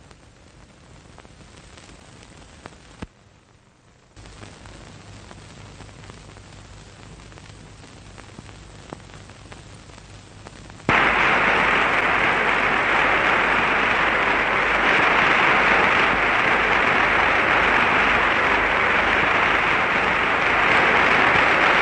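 Faint steady hiss of an old film soundtrack, then about halfway through a large crowd starts applauding suddenly and loudly, a dense steady clapping that carries on to the end.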